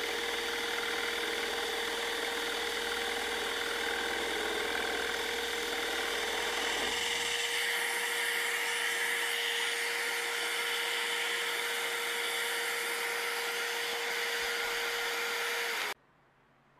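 Electric scroll saw running steadily, its blade cutting a block of wood. About seven seconds in, the low rumble of the cut stops as the blade comes free and the saw runs on; near the end the sound cuts off suddenly.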